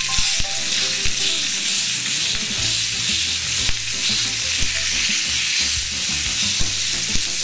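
Bone-in beef steak searing with onion and garlic in a hot cast-iron grill pan, a steady sizzle, with a few short clicks of metal tongs against the pan as the meat is pressed and shifted.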